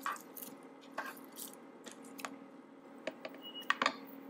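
A spoon stirring and scraping peas and capsicum around a nonstick pan: scattered soft scrapes and taps, loudest in a quick cluster near the end, over a steady low hum.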